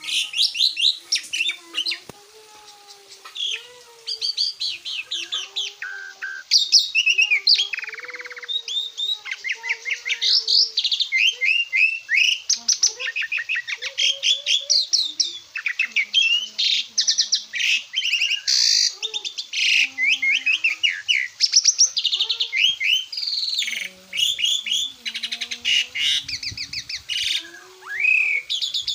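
Asian pied starling (jalak suren) singing loudly and almost without pause: a varied stream of rapid chirps, trilled runs and whistles, with a few lower whistled notes mixed in and a short lull a couple of seconds in.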